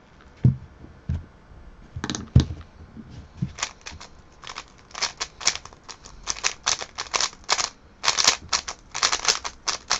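3x3 speed cube being turned fast in a speedsolve: quick runs of sharp plastic clicks from the layers snapping round, packed denser from about halfway on. A few low thumps come in the first few seconds.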